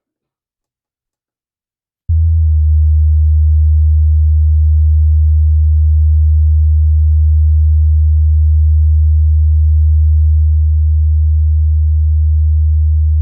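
Electronic theremin sounding a single low, steady tone that comes in abruptly about two seconds in and holds one pitch without gliding.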